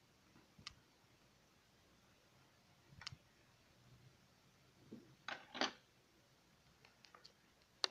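Hard plastic parts of a PVC figure clicking and tapping as they are fitted together, a handful of separate small clicks with the loudest pair about five and a half seconds in, over near silence.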